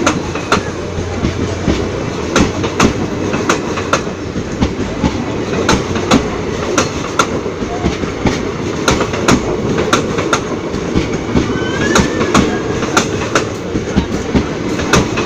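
Farakka Express passenger coaches rolling along the track, their wheels clicking over the rail joints in a steady clickety-clack over a continuous rumble. The clicks often come in quick pairs, one to two a second.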